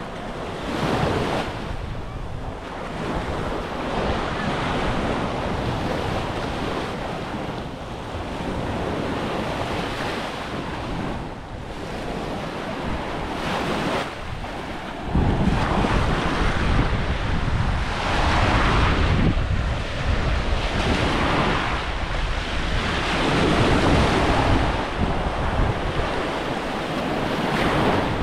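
Small Baltic Sea waves breaking and washing up on a sandy shore, swelling and easing every few seconds. Wind rumbles on the microphone, heavier from about halfway through.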